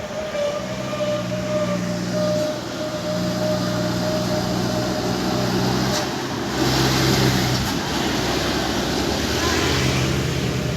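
A heavy vehicle's engine running close by with a steady low drone, and a short hiss about two-thirds of the way through.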